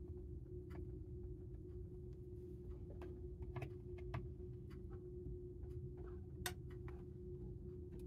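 Scattered small plastic clicks and taps as nylon pry tools work along the edge of a ThinkPad laptop's bottom cover, unhooking its clips, with the sharpest click about six and a half seconds in. A steady low hum runs underneath.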